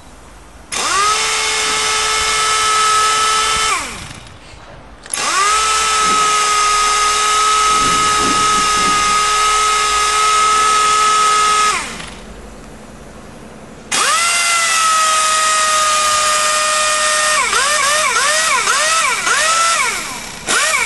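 An electric power tool's motor is run three times. Each time it spins up to a steady whine and winds down when released. Near the end of the last run it is pulsed in quick bursts, its pitch dipping and rising several times.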